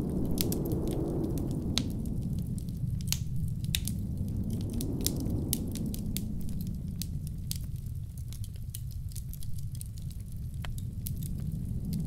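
Wood fire crackling in a fireplace, with irregular sharp pops and snaps, over the low rumble of blizzard wind that swells and eases a few times.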